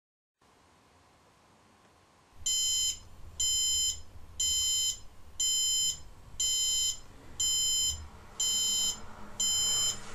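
Electronic alarm clock going off: a high, multi-tone beep repeating about once a second, starting a couple of seconds in.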